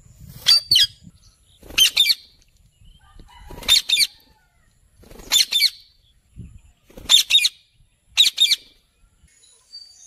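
Rose-ringed parakeets calling: six bouts of two or three short, shrill calls, about one bout every one and a half seconds.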